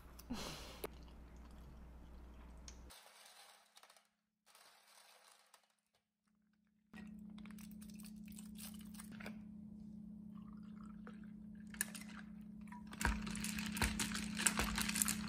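Homemade sparkling konjac-jelly drink being made in a glass of ice. There is quiet pouring and squeezing first. About two-thirds of the way in it turns to louder stirring, with ice clinking against the glass.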